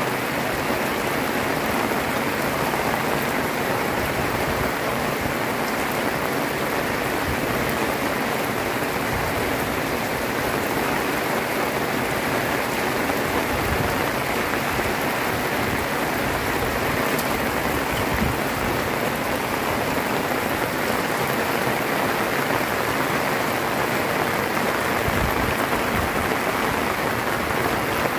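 Heavy rain pouring down steadily, a dense even hiss without a break.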